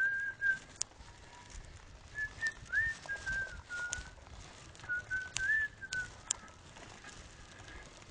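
A man whistling a short tune in clear held notes with small slides, in three phrases, with a few sharp clicks between them.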